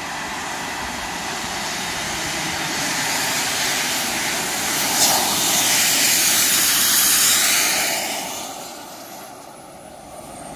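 Kingtech K180 model gas turbine on a mountain bike passing by at speed: its jet roar builds, peaks as it goes past, then fades, with a high whistle dropping in pitch as it moves away.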